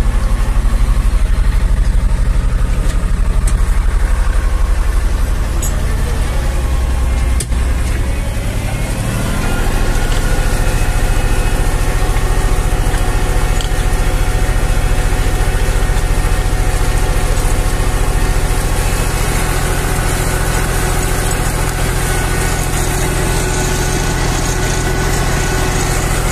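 Zetor 5011 tractor's diesel engine running steadily while it pulls a plough. About nine seconds in, the engine note shifts and rises, then holds steady again.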